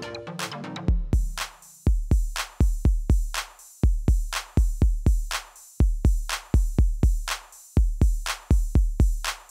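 Background music: a short synth passage, then about a second in an electronic beat starts, with deep kick-drum thumps and sharp hits repeating several times a second.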